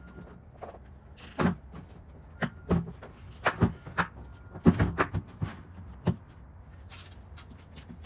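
Black plastic Apache 4800 hard case being shut and handled: about a dozen sharp knocks and clicks of lid, latches and plastic, spread over some five seconds and loudest near the middle.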